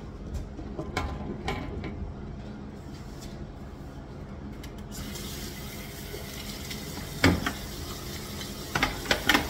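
A faucet is turned on about halfway through and water runs into a restroom sink, an even hiss over a steady low hum, with a sharp knock a little later and three quick knocks near the end.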